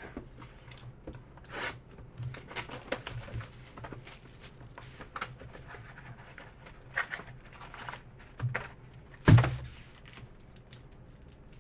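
Trading cards and pack wrappers being handled: scattered soft rustles, crinkles and clicks, with one louder thump about nine seconds in.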